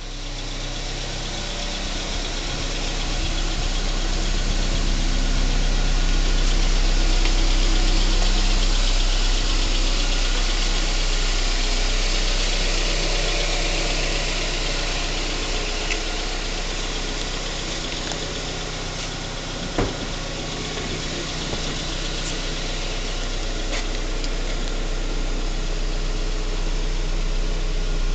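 Toyota Yaris 1.3 16V four-cylinder petrol engine idling steadily, with a single sharp click about twenty seconds in.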